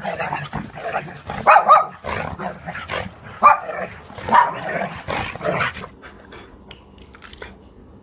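Dog barking several times, with loud, short barks; the barking stops about six seconds in.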